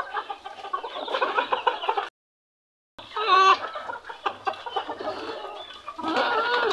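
A flock of bantam chickens (Cochins and frizzles) clucking, several birds calling over one another in short, overlapping clucks. The sound drops out completely for under a second a little after two seconds in.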